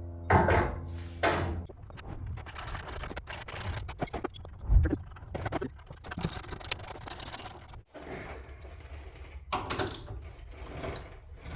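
Socket ratchet wrench clicking in quick runs as the bolts holding the tow hooks are tightened, with one sharp knock about halfway through.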